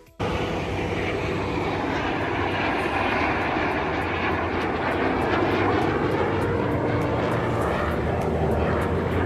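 Fixed-wing aircraft engine noise, loud and steady, cutting in abruptly just after the start.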